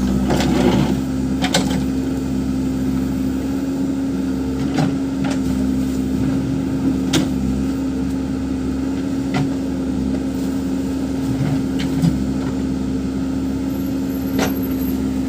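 Backhoe loader's diesel engine running steadily, with several sharp knocks spread through it.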